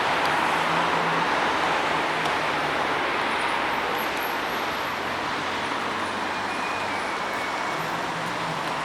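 Steady rush of road vehicle and traffic noise, slowly getting quieter.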